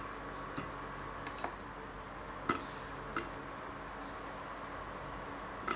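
A few sharp, scattered pops of the last corn kernels bursting inside a covered frying pan, about a second apart, the loudest about halfway through, over a steady faint hum.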